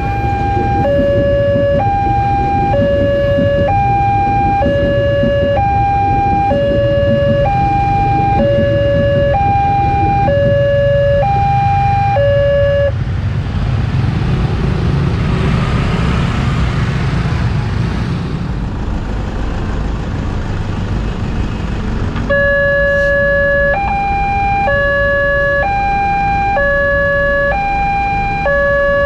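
Railway level-crossing warning alarm: an electronic bell alternating between a higher and a lower tone about once a second, over the low rumble of an electric commuter train running past. The alarm stops about halfway through, then starts again near the end as the crossing barriers lift.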